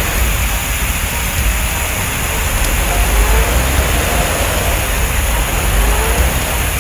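Sound effect of a fire hose spraying water: a steady rushing hiss over a low engine rumble from the fire truck.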